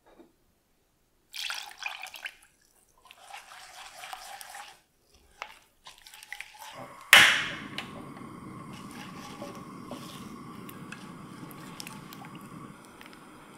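Milk and cream poured in two spells into a saucepan of egg yolks and sugar. A silicone spatula then stirs the liquid custard mixture in the pan with a soft, steady sloshing. A single sharp knock near the middle is the loudest sound.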